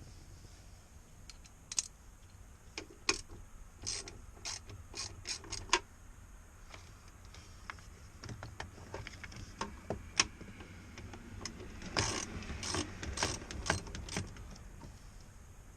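Irregular sharp clicks and rattles of hand tools and metal hardware being worked on a truck door's mirror mount, bunched in two clusters, about four to six seconds in and again near twelve to fourteen seconds in.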